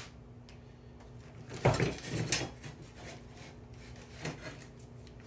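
Knocks and scrapes of a thin wooden test strip and tools being handled on a workbench, a short cluster about two seconds in, with a lighter knock near the end.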